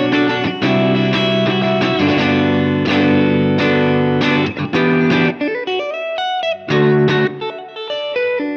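Fender Telecaster electric guitar in DAEAC#E tuning with a capo, strumming ringing open-string chords (Bm7, then Gmaj9) for about five seconds, then picking single notes in a short melodic run before chords return near the end.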